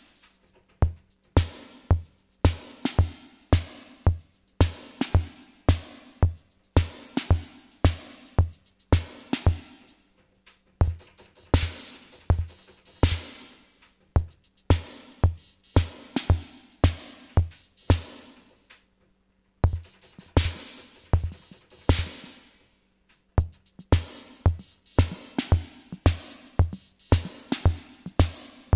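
Sound Master Stix ST-305 analogue drum machine playing programmed rhythm patterns: bass drum about twice a second under hi-hat, snare and cymbal hits. The pattern breaks off a few times, once stopping for about a second roughly two-thirds through, then starts again.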